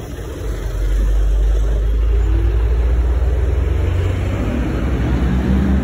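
Road traffic on a city street: a loud low rumble that swells about a second in, with a vehicle's engine note rising near the end.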